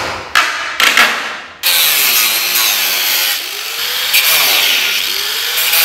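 A few sharp blows of a hatchet on a wooden pallet, then a corded angle grinder cutting into the pallet wood. The grinder's whine sags and recovers as it bites into the wood.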